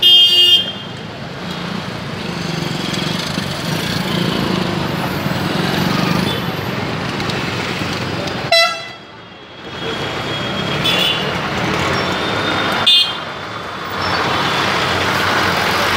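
Steady road traffic running past, with vehicle horns giving a few short toots: one at the start, then about eight and a half and thirteen seconds in.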